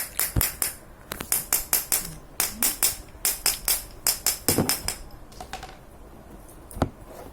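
Quick metallic tapping in runs of several strikes, about five a second, with short pauses between runs. The taps thin out later, with one last sharp tap near the end. This is the loose ball bearings of a bicycle freewheel being tapped down snugly into their ball ring.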